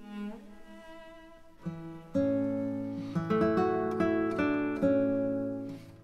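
Instrumental background music: a few plucked notes, then fuller sustained chords from about two seconds in.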